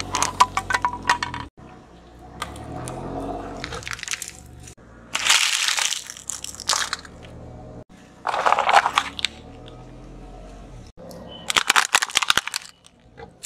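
A car tyre rolling over and crushing one object after another in separate short takes: a squeezed plastic cream tube, then a plastic basket and plastic toy cups and saucers cracking and crunching under the wheel. A car engine runs low underneath, and the sound cuts abruptly between takes.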